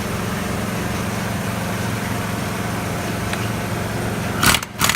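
Steady machine hum from a motor running in the shop. Near the end a short, loud burst of an impact wrench starts on the KZ650's 30 mm clutch hub nut, which is held by a belt around the inner clutch basket.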